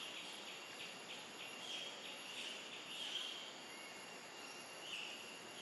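Faint outdoor ambience of insects chirping in short, irregular bursts over a thin, steady high tone.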